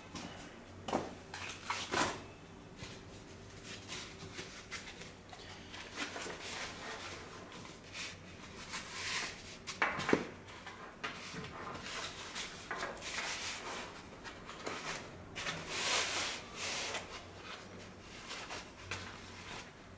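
Handling noise from a car-stereo head unit in its plastic dash frame being lifted, turned and set back on a foam pad: scraping and rubbing with a few sharp knocks, one about a second in, one at two seconds and one about halfway.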